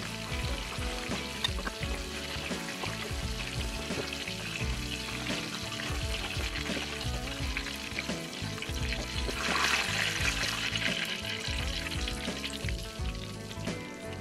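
Breadcrumbed mushrooms deep-frying in hot sunflower oil in a saucepan, sizzling steadily, as they are stirred and turned with a metal spoon. The sizzle swells louder for a couple of seconds about nine seconds in.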